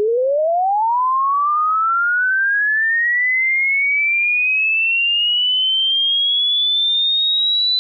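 Hearing-test tone sweep: a single pure tone gliding steadily upward in pitch, from a low note to a high whistle, at an even level.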